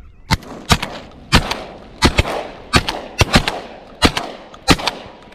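Repeated shotgun fire: about a dozen sharp blasts in five seconds, several in quick pairs, with each shot ringing out briefly.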